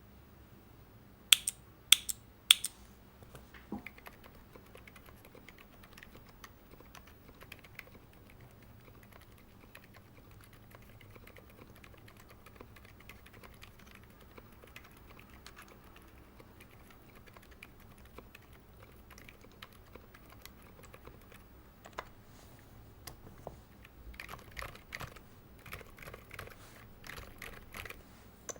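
Keys being typed on a Tofu60 60% mechanical keyboard. Three loud sharp clacks come close together in the first few seconds, then only sparse faint key presses for a long stretch, and quicker runs of typing near the end.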